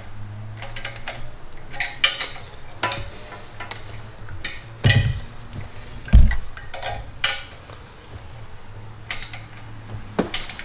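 Torque wrench and socket tightening the air-tube flange bolts on the header to 15 foot-pounds: irregular metallic clicks and clinks, with a dull thump about six seconds in.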